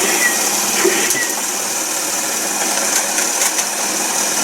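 Battery-powered Tomy Sonic the Hedgehog tabletop pinball toy switched on, giving out a loud, steady buzzing whir, with a few sharp clicks from play.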